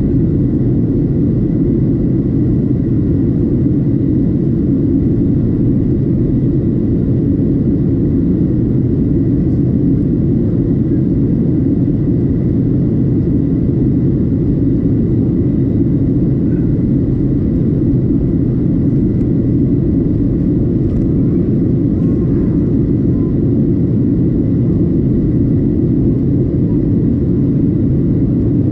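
Steady in-flight cabin noise of a Boeing 737-700: a constant low rumble of engines and airflow with a thin, steady high tone above it.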